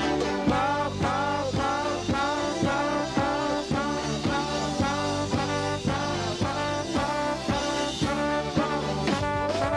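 A live konpa band playing, with a trombone section blowing short repeated riffs over drum kit, congas, bass and guitar at a steady beat of about two a second. A long held brass note comes in near the end.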